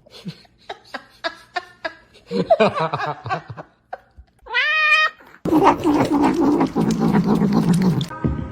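A cat meowing and yowling: short scattered sounds at first, a clear rising meow about halfway through, then a louder, longer stretch that stops abruptly near the end.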